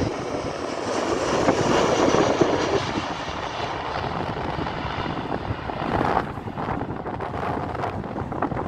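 Boeing 737 twin-jet on final approach passing low overhead, its engines making a broad jet noise. The noise is loudest in the first few seconds and fades as the plane flies away.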